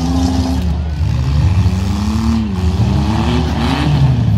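Engines of demolition derby compact cars revving over a steady low rumble, the pitch rising and falling again and again.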